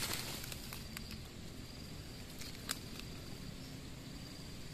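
Faint outdoor ambience with an insect's thin, steady, high trill running on and off, a few light clicks, and one sharper click about two and a half seconds in.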